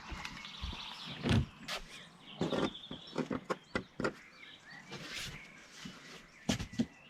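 Hard plastic shed roof and wall panels knocking, clicking and scraping against each other as a roof segment is pushed into its channel. The knocks are irregular, with bunches of sharper ones in the middle and one pair near the end.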